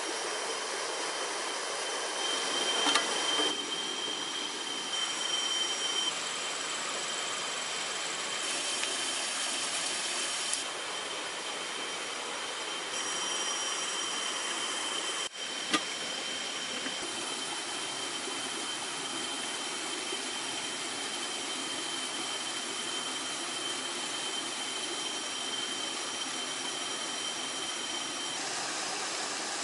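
Steady rush of a flowing forest stream, with thin, steady high-pitched tones over it. A single sharp click about sixteen seconds in.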